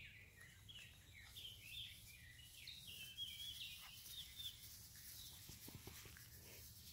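Faint songbird chirping: a rapid run of short, high notes, several a second, some sliding downward, which thins out about two-thirds of the way through.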